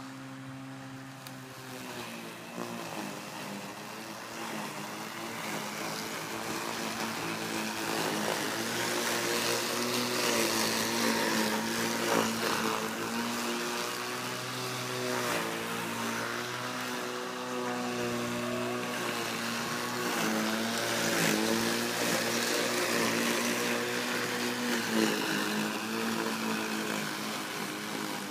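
Neuton battery electric lawn mower running as it is pushed across grass: a steady motor hum whose pitch sags briefly and recovers every few seconds. It grows louder over the first several seconds.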